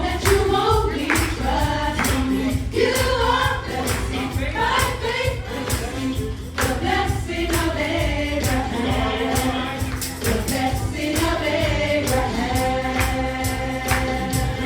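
A choir singing a gospel-style worship song over band accompaniment with a steady percussion beat.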